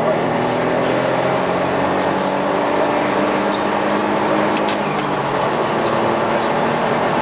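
Smart Roadster's small turbocharged three-cylinder engine pulling under acceleration, heard from inside the cabin, its pitch rising slowly, over steady road and wind noise.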